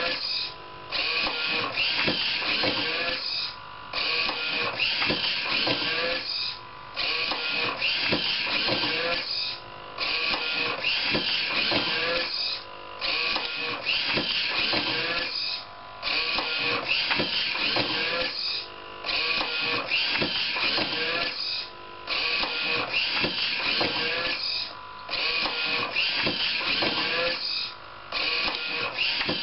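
A homemade automatic book scanner's page-turning mechanism running continuously, one page-turn cycle about every three seconds, each cycle ended by a short quiet gap.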